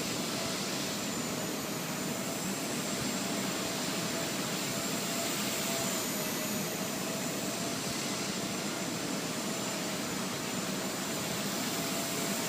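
Blade 130 X micro RC helicopter in flight: a steady whoosh of rotor blades with the high whine of its electric motors, the pitch wavering slightly.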